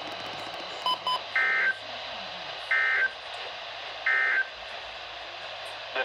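Midland weather radio sounding two quick beeps, then three short, equally spaced bursts of the EAS/SAME digital data tone, the end-of-message code of a NOAA Weather Radio alert, under a faint steady hiss.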